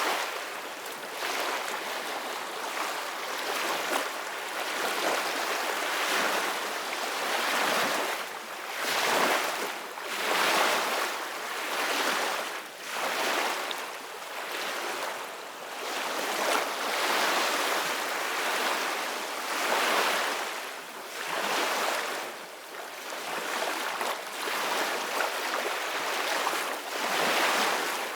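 Open-sea waves splashing and washing in an unbroken surge, swelling and easing every two seconds or so, with wind over the water.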